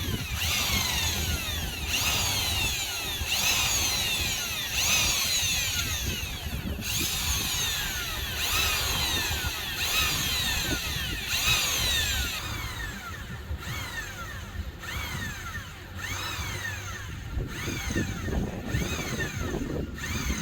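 Hand hacksaw cutting through a metal tube in steady back-and-forth strokes, about one every second and a half, each stroke rising and falling in pitch. It goes quieter about two-thirds of the way through.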